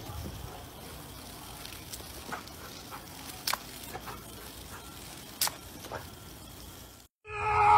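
A jet of water from a hose or sprinkler spattering into a plastic kiddie pool: a steady hiss and splash, with a few sharp clicks, the most distinct about three and a half and five and a half seconds in.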